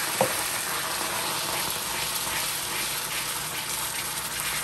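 Food frying in hot oil in a pot: a steady sizzle with scattered popping crackles. A single short, sharp knock sounds about a quarter second in.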